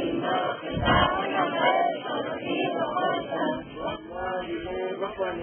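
A large group of students chanting a prayer together, many voices reciting in unison in a slow sing-song. A brief low thump about a second in.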